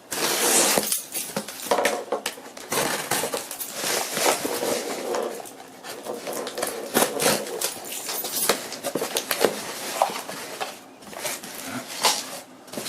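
Cardboard camcorder box and its packaging being opened and handled close up: rustling and crinkling with many small clicks, scrapes and light knocks.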